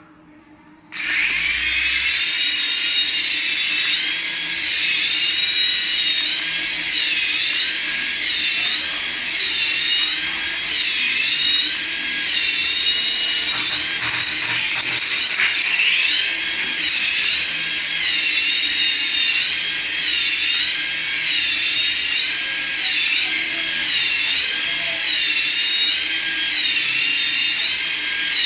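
High-pitched whine of a remote-control toy, starting abruptly about a second in and wavering up and down in pitch about once a second.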